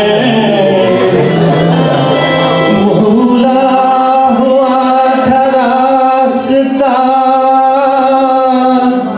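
Live devotional song (bhajan): a male voice singing a melody over a steady held note, with tabla and keyboard accompaniment.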